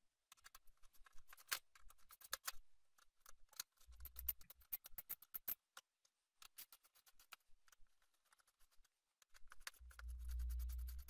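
Small scraping clicks of a flat-bladed screwdriver driving in the screws that hold a CPU heatsink on a desktop motherboard, with a low rumble of handling twice, about four seconds in and again near the end.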